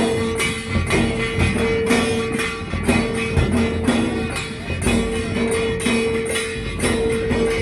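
Dhol drums beating a steady, driving rhythm with jingling metal percussion, and a held melodic note that returns every second or so, in a folk dhol ensemble performance.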